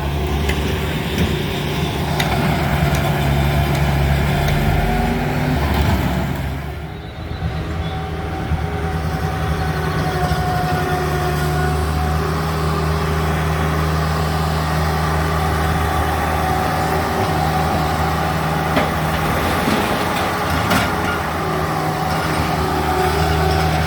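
Heavy diesel equipment engine running steadily at a constant speed, with a faint steady whine above the hum. The level dips briefly about seven seconds in, then the engine carries on unchanged.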